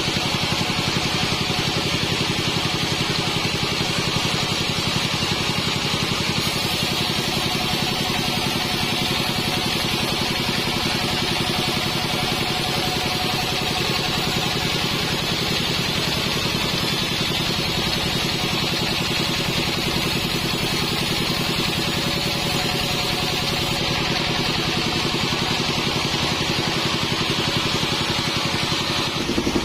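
Modified Bandsaw48 band sawmill running steadily, a loud continuous mechanical drone with an even running rhythm; the sound shifts just before the end.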